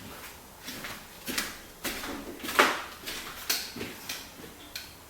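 A handful of irregular knocks and clicks from objects being handled, the loudest about two and a half seconds in.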